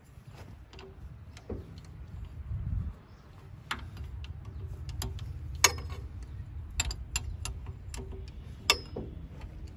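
Sharp metal clicks and clinks of an open-end spanner working on a diesel fuel injection pump's throttle linkage fittings: a handful of separate strikes, the loudest about halfway through, over a low rumble.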